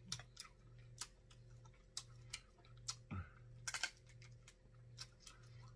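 Quiet eating sounds close to the mouth: sparse wet clicks and smacks of chewing, a tight cluster of them just before four seconds in. A brief low hum of the voice about three seconds in.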